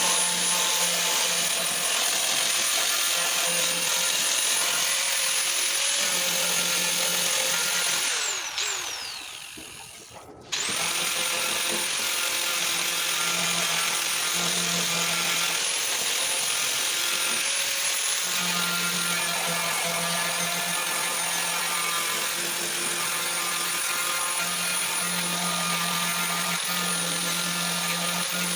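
Handheld power sander on a car body panel, running with a steady high whine. About 8 seconds in it winds down with a falling whine, is briefly quiet, then starts again at about 10 seconds and keeps running.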